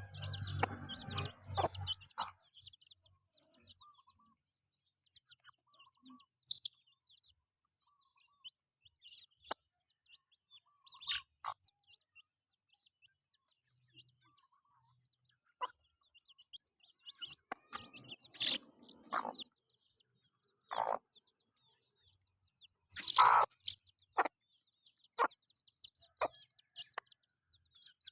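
Chickens clucking and chirping while foraging, with scattered short sharp clicks and scratchy bursts among the calls; the loudest burst comes near the end.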